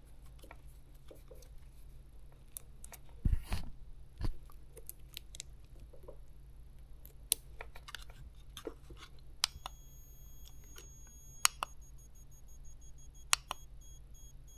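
Small clicks and two knocks from handling an electroluminescent (EL) wire and its battery inverter pack. About nine and a half seconds in, the inverter's faint high-pitched whine starts as the wire is powered up and lights, then breaks into short on-off pulses near the end.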